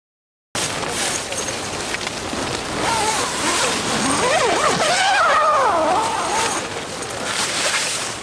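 Wind-driven snow blasting against the tent fabric in a steady, loud hiss, heard from inside the tent, after a brief silence at the very start. In the middle the wind whistles in gusts that waver up and down in pitch.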